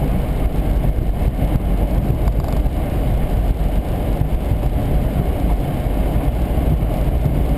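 Steady road noise of a car driving on a wet road, heard from inside the cabin: a continuous low rumble of tyres and engine with no distinct events.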